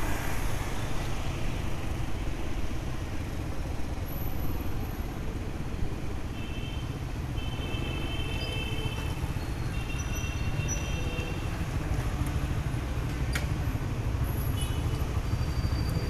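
Steady low rumble of motorbike traffic heard from a moving scooter: engine and road noise.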